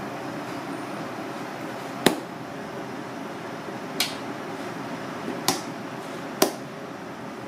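Four sharp wet slaps as pieces of raw red clam (akagai) are struck against a plastic cutting board, about two seconds apart at first and then closer, over a steady background hiss.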